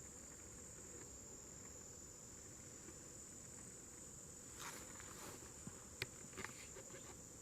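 Faint, steady high-pitched chorus of singing insects. A few soft rustles and clicks come between about four and a half and six and a half seconds in.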